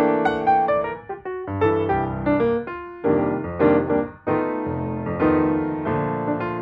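Background piano music: a light melody of struck notes and chords.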